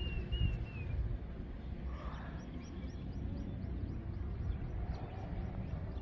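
Birds calling over wind rumbling on the microphone: a short run of whistled chirps in the first second, then a thin high chirp repeated about four times a second for a few seconds.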